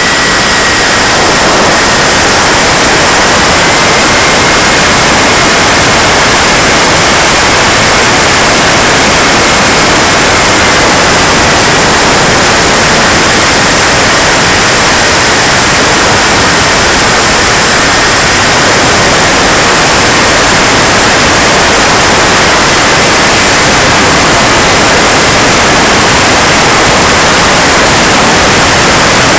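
KingTech K80 model jet turbine running steadily: a loud rush of jet noise with a high thin whine that steps up slightly in pitch a few seconds in and settles back down.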